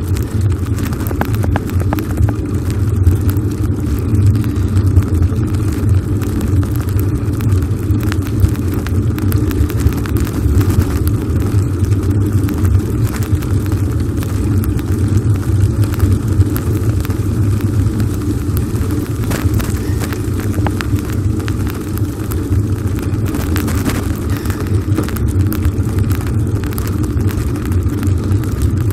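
Steady low rumble of a bicycle ride, wind buffeting the microphone and tyres rolling on an asphalt path, with scattered small clicks and rattles.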